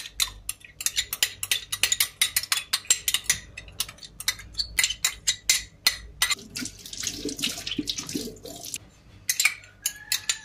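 Quick wet clicks and smacks of yogurt being spooned onto raw chicken pieces in a metal tray, several a second. About six seconds in they give way to a softer wet squelching as the chicken is worked into the yogurt by hand, with a few more clicks near the end.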